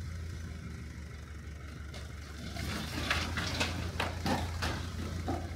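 Diesel engine of a CAT 935 track loader running steadily. About halfway through comes a run of sharp cracks and knocks lasting a couple of seconds.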